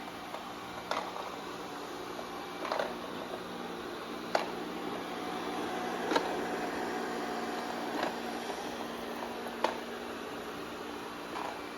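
Amarey A90+ robot vacuum running on a floor, a steady whirring hum with a short click or tap recurring about every second and a half to two seconds.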